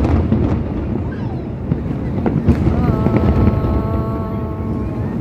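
Distant fireworks going off, with sharp pops and cracks over a steady low rumble of city noise and wind on the microphone. About three seconds in, a held pitched tone sounds for about two seconds.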